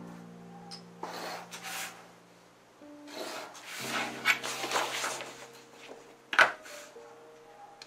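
Paper rustling and scraping under a utility knife and steel ruler on a cutting mat as a sheet is cut and shifted, with one sharp knock about six and a half seconds in. Soft background music with sustained notes runs underneath.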